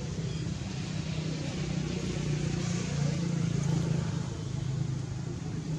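A motor vehicle's engine running with a steady low hum that swells around the middle and eases off, as if passing by.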